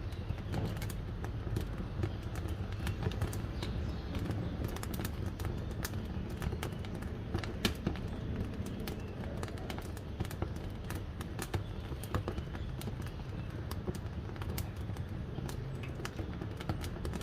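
Wood fire crackling in a wood-burning cooking stove: irregular sharp snaps and pops, some louder than others, over a steady low rushing noise.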